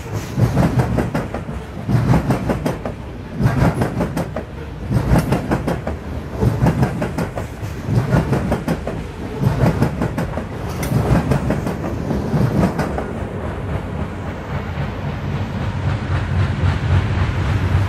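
Loaded coal hopper cars rolling past, their wheels clicking over the rail joints in repeated clusters about every second or so. The clicking stops about 13 seconds in as the end of the train passes, leaving a steady low rumble.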